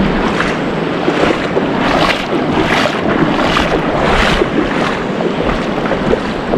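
Small waves lapping and washing in the shallows of a large lake, swelling about every three-quarters of a second, with wind buffeting the microphone.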